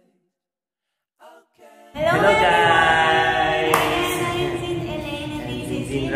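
Near silence, then about two seconds in, voices start singing together without accompaniment, holding long notes.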